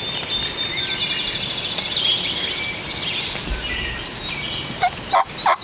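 Songbirds singing and trilling in spring woods, with a chorus of high chirps and warbles. Three short, sharp calls stand out near the end.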